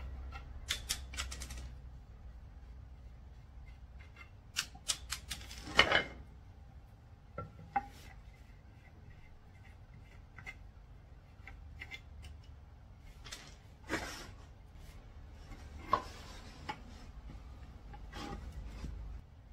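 Irregular clicks and knocks of wooden table parts being handled and fitted together: a wooden rail with threaded metal rods set against turned wooden legs. The knocks come in a quick cluster about six seconds in, with another sharp one near fourteen seconds.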